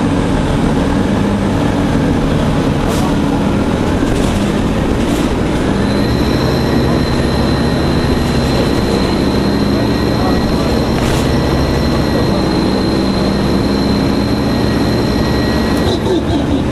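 Orion V CNG transit bus under way, its engine running steadily and loud. About five seconds in, a high-pitched whine rises and holds, then drops away near the end.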